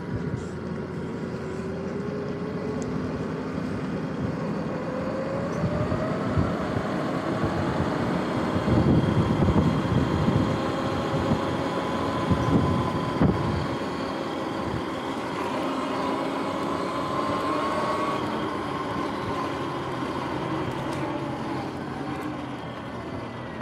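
Sur-Ron X electric dirt bike's motor and belt drive whining while riding. The whine rises in pitch as the bike speeds up over the first few seconds, holds, then eases down near the end, with wind rumbling on the microphone loudest around the middle.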